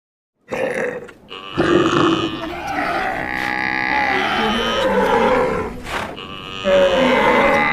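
A stampede sound effect: many animal calls overlapping in a dense mix, starting about half a second in, with a few sharp knocks among them.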